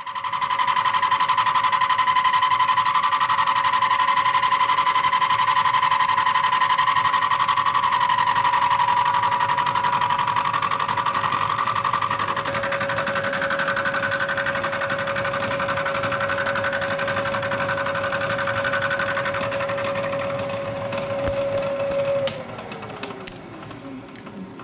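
End mill in a Bridgeport vertical milling machine cutting along the side of a cast iron straight edge casting: a loud, steady cut with a high ringing tone. About 22 seconds in the cut stops and a falling tone follows as the spindle winds down.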